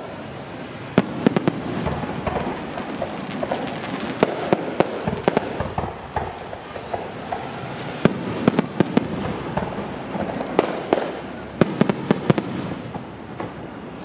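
Aerial firework shells bursting overhead: sharp bangs over continuous crackling, coming in clusters of several reports with short lulls between.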